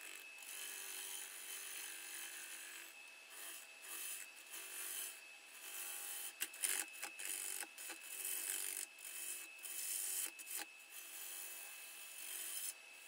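Turning tool cutting the spinning base of a curly maple bowl blank on a wood lathe: a hissing shear of shavings that stops and starts again many times as the tool is pushed in and eased off, over a steady thin high tone.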